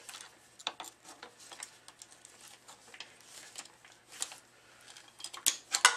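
Light clicks and rustles of pliers gripping and pulling synthetic tennis string while tying off a knot, with a quicker run of sharper clicks near the end.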